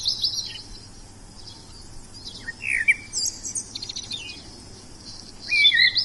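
Wild songbirds chirping and whistling in short high phrases, with a quick rapid trill about four seconds in and louder calls near the start and end.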